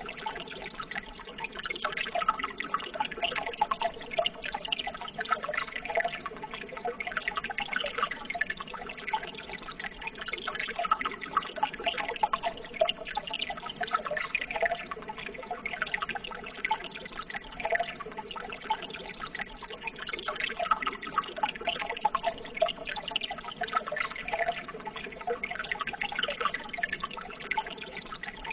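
Running water trickling and bubbling steadily, full of small splashes and drips.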